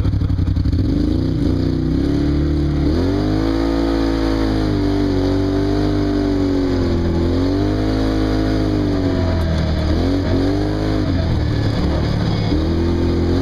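Wildcat off-road vehicle's engine breathing through a Muzzy aftermarket exhaust pipe, revving up and easing off over and over under throttle, about five surges in all.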